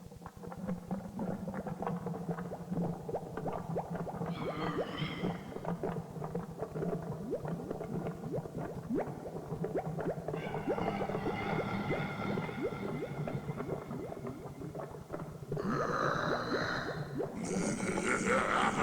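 Spooky Halloween sound-effects track: a steady low hum under dense crackling, with wavering, wailing high tones that come in about four seconds in, return from about ten seconds, and grow louder near the end.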